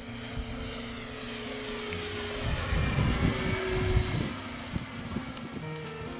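Radio-controlled model Spitfire's motor and propeller whining on a close low pass, growing louder to a peak about three to four seconds in, then dropping in pitch as it goes by.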